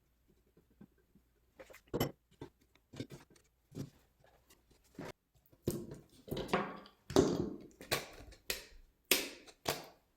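A series of irregular clicks and knocks, sparse at first, then louder and closer together in the second half.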